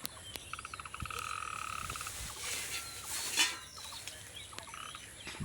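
A frog calling with a rapid pulsed trill lasting about a second and a half, repeated briefly near the end. A short burst of rushing noise comes in the middle.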